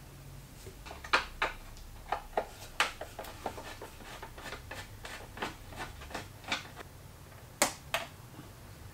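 Hand tools clicking and knocking on the metal parts of a moped as its engine is unbolted: irregular sharp clicks, with two louder knocks in quick succession near the end.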